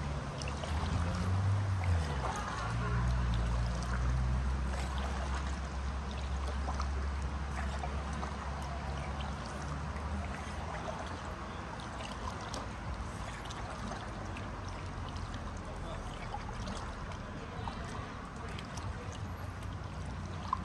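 Kayak paddling on a river: the paddle dipping and splashing with water trickling off the blades, many small sharp splashes throughout. A low steady hum runs through the first half.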